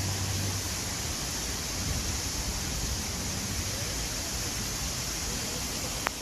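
Steady rush of a waterfall, an even hiss of falling water, with one sharp click near the end.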